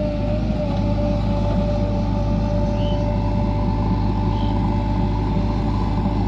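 JCB 3DX backhoe loader's diesel engine running steadily, with a constant high whine over the low rumble.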